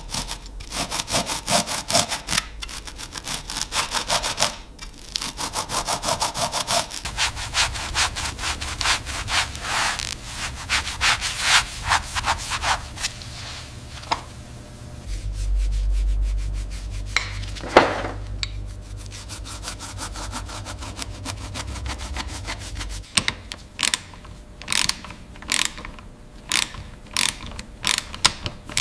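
Rapid, rhythmic back-and-forth rubbing strokes on a surface, typical of hand sanding during bodywork. The strokes thin out into separate sharper scrapes near the end, and a low hum sits under them in the middle.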